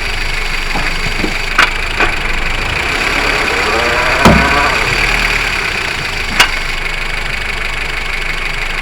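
Honda Civic 5D's steady running noise with four sharp knocks from the right-side wheel area: about one and a half, two, just past four and six and a half seconds in. The one just past four seconds is the loudest and rings briefly.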